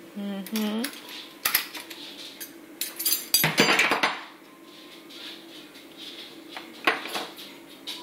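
Metal cutlery clinking and clattering as spoons and utensils are pulled out of a dishwasher's plastic cutlery basket, with the densest clatter about three to four seconds in.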